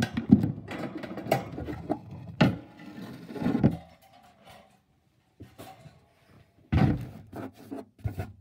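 Hands handling a gerbil tank and its contents: a string of knocks and rubbing sounds, busy for about the first four seconds, then after a short pause more knocks, a louder one near the end.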